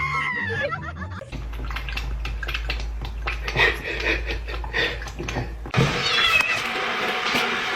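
Domestic cat meowing and vocalising over a few short clips, with a low steady hum and clicking in the middle.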